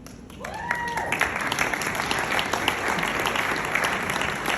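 Audience applauding, the clapping starting about half a second in and continuing steadily. A single short rising whoop from one person sounds as it begins.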